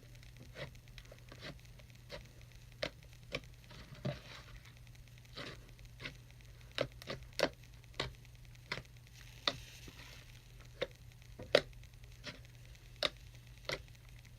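Clear-glue glitter slime being squished and pressed by hand, giving irregular sticky clicks and pops, about one or two a second. A low steady hum runs underneath.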